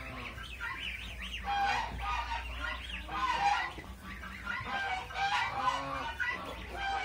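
A brood of ducklings peeping, many short high calls overlapping in a continuous chorus.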